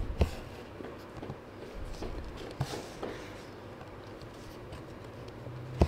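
Faint rustling and a few soft ticks of a needle and embroidery floss drawn through stamped Aida cross-stitch fabric stretched in a plastic hoop.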